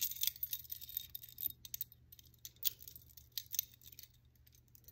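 Metal bangles and beaded bracelets clicking and clinking together as they are stacked by hand: a quick run of light clicks that thins out after about two seconds.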